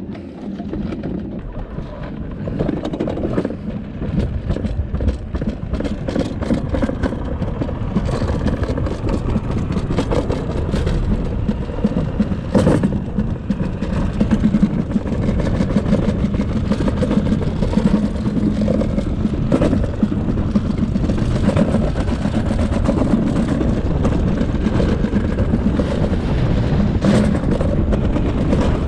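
Plastic summer-toboggan sled rumbling and rattling down a stainless-steel trough run, growing louder over the first several seconds as it picks up speed, then holding steady, with a few sharp knocks.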